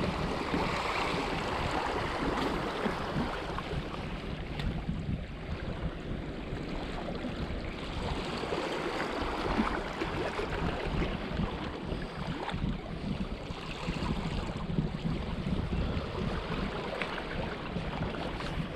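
Small waves lapping and washing against shoreline rocks, a steady uneven wash, with wind buffeting the microphone.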